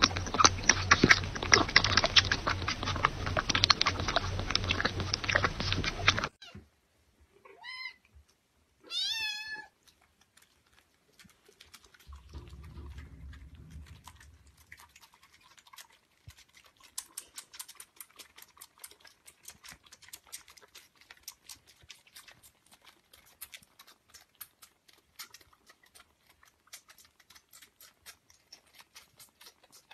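Kittens: a loud, dense run of clicks and noise for the first six seconds, then two short high meows, each sliding up and down. After that comes a long run of fast, faint wet clicks as kittens suckle from bottles.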